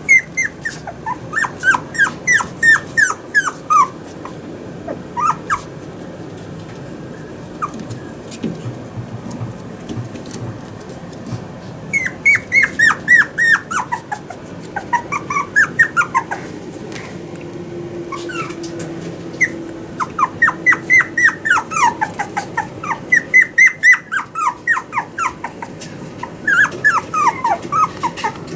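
Toy poodle puppy whining: runs of short high cries, each dropping in pitch, in several bouts with pauses between.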